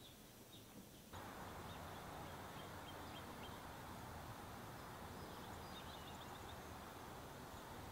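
Faint outdoor ambience with small birds chirping now and then. About a second in, a louder, steady hiss of outdoor background noise comes in under the chirps.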